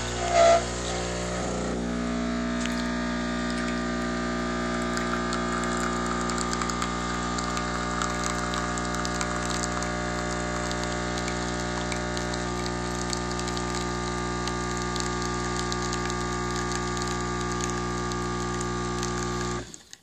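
Mitaca Pod 1 espresso machine's pump humming steadily as it pushes water through an ESE pod to brew a single espresso. The hum stops abruptly near the end as the shot finishes.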